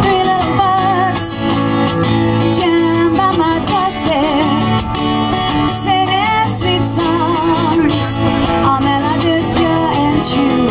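A woman singing to strummed acoustic guitar, played live and unplugged.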